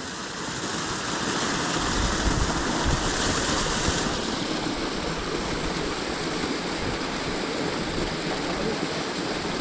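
Steady rush of a waterfall's stream pouring over the rock lip at its top.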